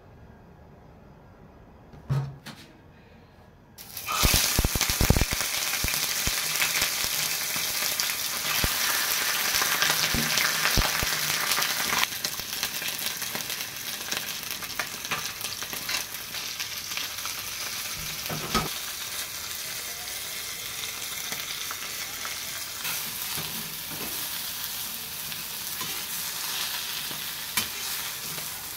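Whole spice-rubbed fish sizzling in hot oil on a flat tawa. The sizzle starts suddenly about four seconds in, with a few knocks as the fish go into the pan, and carries on steadily, easing slightly after about twelve seconds. Before that it is quiet apart from a single knock.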